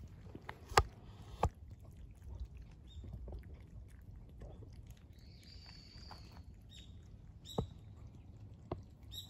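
Two cats eating at close range, lapping milk from a shallow bowl with soft, quick wet clicks. Two sharp knocks come about a second in and fainter ones near the end. A bird calls faintly in the background around the middle.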